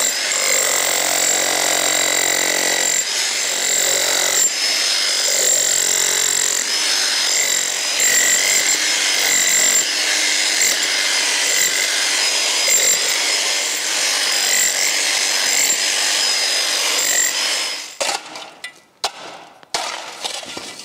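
Electric demolition hammer with a chisel bit chipping bricks out of the base of an old brick wall, running steadily with a motor whine over the rapid hammering. It stops near the end, followed by a few knocks and clatter of loose broken bricks.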